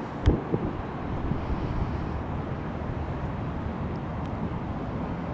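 The CFM56 jet engines of a Sun Country Boeing 737-800 give a steady noise as the airliner rolls out along the runway just after landing. There is one sharp knock about a quarter second in.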